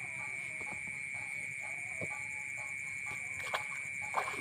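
A steady high-pitched whine with a faster pulsing hiss above it, under faint distant voices; two sharp clicks near the end.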